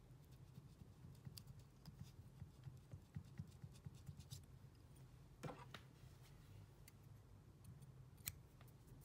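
Very quiet handling sounds of fly tying: a bobbin wrapping thread onto a wire shank extension, with faint scattered ticks over a low room hum. A sharper click comes about five and a half seconds in, and a small scissor snip near the end.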